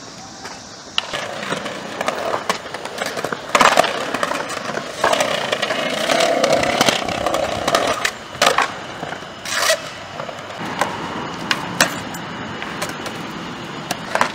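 Skateboard wheels rolling on concrete, broken by repeated sharp clacks of the board popping and landing.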